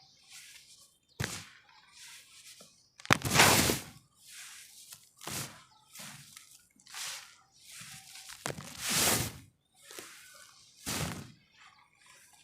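Lumps of red dirt being crumbled, crunching and breaking apart in a string of separate bursts, the longest about three seconds in and again about nine seconds in.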